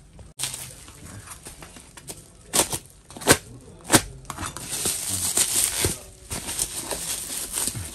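Bubble-wrap packaging on a parcel crinkling and rustling as it is handled and cut open with a shard of glass, with three sharp cracks about two-thirds of a second apart near the middle.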